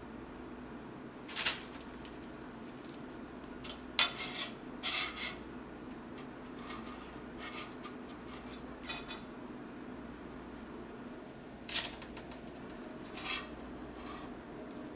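Stainless steel mixing bowl clinking and scraping as cookie dough is scooped out of it: several short, separate clinks, the loudest about four seconds in, over a steady low hum.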